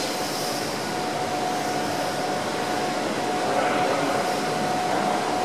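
Steady rushing indoor ambience of an aquarium hall, with a faint continuous hum running through it.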